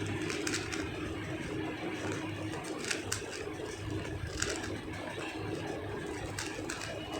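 Scattered, irregular clicks of a 3x3 speed cube being turned, over the steady hum of a running fan.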